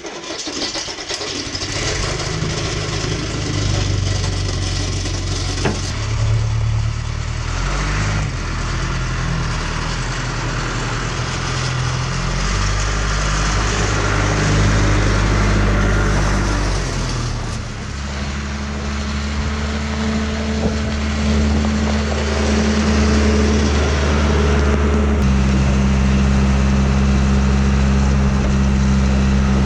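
John Deere 310C backhoe's four-cylinder diesel engine on a cold start, catching about a second in and running, its speed changing several times before it settles into a steady run for the second half.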